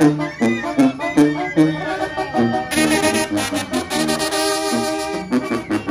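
A Mexican banda playing live: trumpets and tuba carrying a melody over drums with a steady beat.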